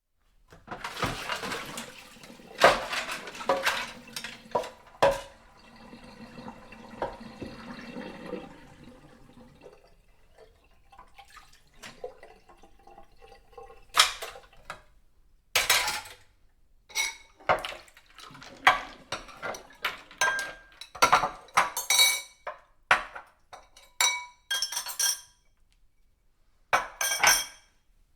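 Dishes being washed by hand: plates, glasses and cutlery clinking and clattering against each other. Water runs under the clatter for the first several seconds. After that come separate knocks and ringing clinks as dishes are handled and set down.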